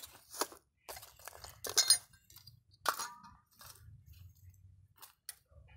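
Hard objects knocking and clinking together in a handful of sharp knocks and scrapes, loudest about two seconds in.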